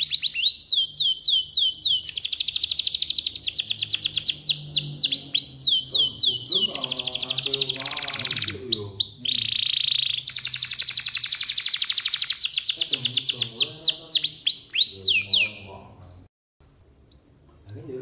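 Domestic canary singing a long, fast song: very rapid rolls of repeated down-sweeping notes, with a held whistle about halfway through. The song stops a couple of seconds before the end, then a few short faint chirps.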